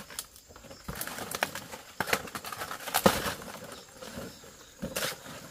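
Large banana leaves rustling and crackling as they are lifted and pulled aside by hand, in several irregular rounds, loudest about three seconds in.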